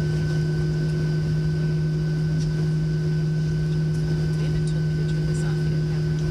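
Steady cabin drone inside a Boeing 737-700 with its CFM56 engines running on the ground: an even hum with a few steady tones over air-conditioning noise.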